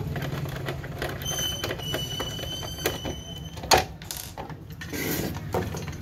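Plastic switch-socket board being taken apart by hand: scattered clicks and knocks as the faceplate comes off its back box, the sharpest knock about four seconds in, over a steady low hum.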